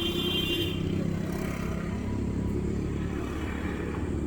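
Steady mechanical drone from a Peugeot 407 V6's engine bay, unchanging throughout, with a brief high whine in the first second.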